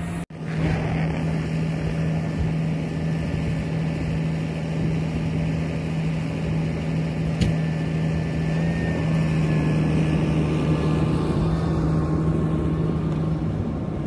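Tractor engine running steadily under load as it pushes through snow drifts with a front blade, with a single sharp click about seven seconds in.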